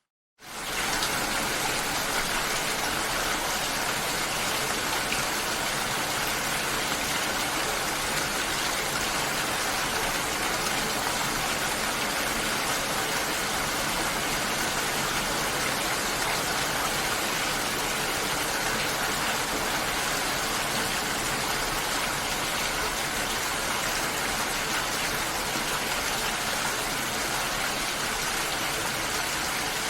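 Steady rain falling, a dense even hiss that cuts in sharply after a brief silent gap at the very start.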